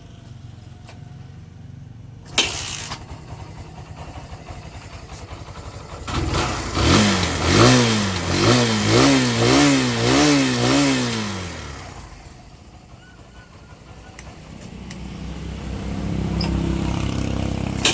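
Kawasaki Barako 175 single-cylinder engine, cold, started easily and revved in about six quick throttle blips, its pitch rising and falling, then settling before running steadily again near the end. A sharp click comes a couple of seconds before the revving.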